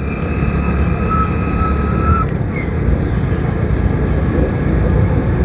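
Steady rumble of a vehicle travelling on a road, engine and road noise, with a faint thin high tone that stops about two seconds in.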